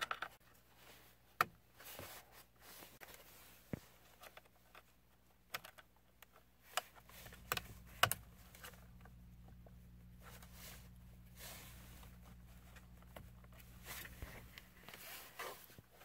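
Faint scattered plastic clicks and rattles as wiring-harness connectors are handled and pushed into a multi-function turn-signal switch on a steering column. A low steady hum comes in about seven seconds in and stops near the end.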